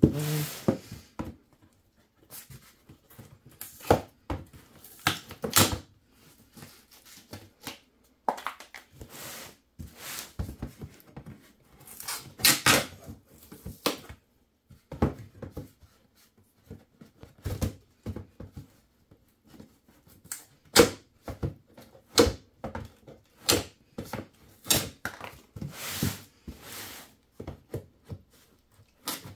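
Crowbar prying the fasteners off a shipping box. Irregular knocks and clicks, with some scraping and tearing, come in uneven groups with short pauses between.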